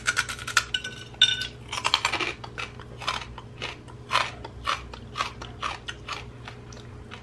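Crunching as a piece of air-fried shark fin is bitten into and chewed. A quick run of crunches comes first, then single crunchy chews about every half second.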